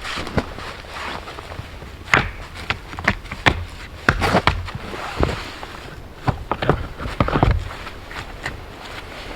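Irregular knocks and thuds with short scraping stretches between them, from hands-on building work with stone, wood and hand tools.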